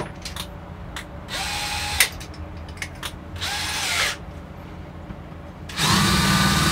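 DeWalt cordless drill/driver driving screws into a plywood template. It gives two short bursts, each rising and falling in pitch, then a longer, louder steady run near the end.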